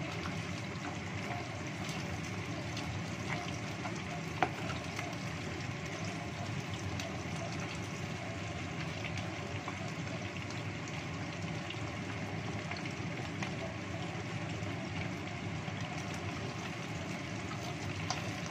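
Chicken wings deep-frying in a small pot of hot oil: a steady sizzle while they are stirred with a wooden spatula. One sharp tap comes about four seconds in.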